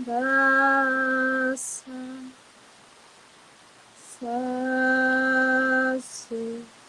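A woman's voice singing a long, steady wordless note, then a short one at the same pitch after a quick breath. The same pair comes again about four seconds in.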